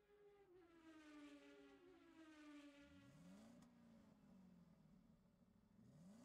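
Near silence: a very faint synthesized tone slides slowly downward, with a short rising sweep about three seconds in and another near the end.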